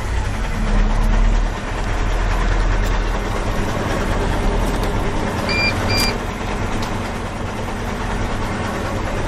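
A heavy vehicle engine running steadily with a deep rumble, with two short high beeps a little after halfway.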